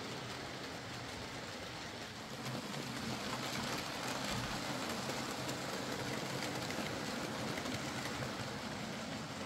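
OO gauge model trains running on the layout: the freshly rewired and regeared Hornby R3314 Class 4F 0-6-0 locomotive's motor and its wagons' wheels rolling steadily over the track, with another train running behind. The sound gets louder about two and a half seconds in as the train nears.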